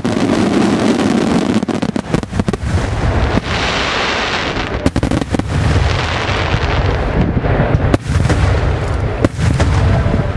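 Aerial firework shells bursting in rapid succession: a dense barrage of bangs over a continuous low rumble, with a hissing rush about four seconds in.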